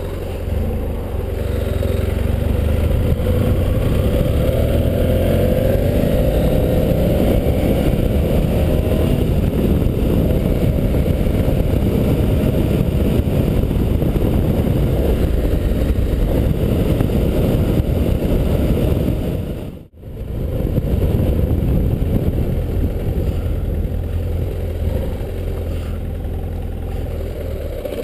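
Motorcycle engine accelerating, its pitch rising over the first few seconds, then running steadily at cruising speed. The sound cuts out for a moment about two-thirds of the way through.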